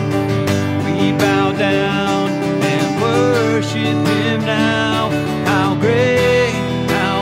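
Acoustic guitar strummed steadily, with a man singing long held notes over it in a worship song.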